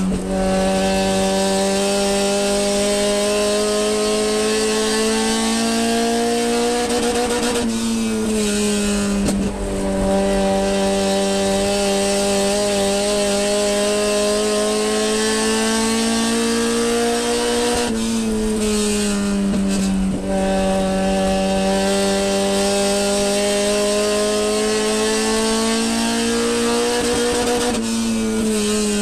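Sport compact race car's engine heard from inside the car, held at high revs lap after lap: its pitch climbs slowly and then dips briefly about every ten seconds, with a steady hiss of wind and road noise over it.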